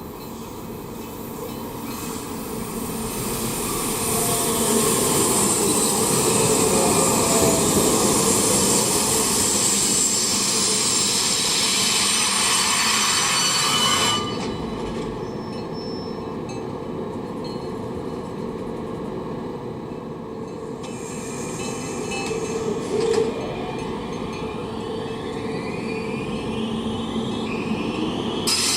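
A train running past on the rails, growing louder over the first few seconds, with a bright high-pitched edge to the rail noise. It cuts off abruptly about halfway through and gives way to a quieter stretch of train sound that swells again toward the end.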